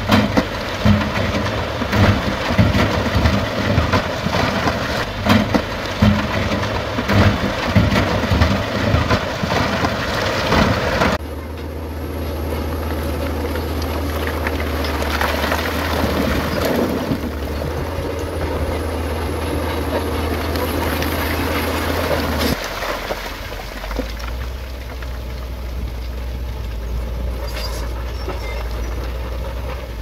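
Heavy diesel earthmoving machinery running with a low steady drone, while rocks clatter and knock repeatedly for roughly the first ten seconds. The sound shifts abruptly about 11 seconds in, and again about 22 seconds in, to a steadier engine drone.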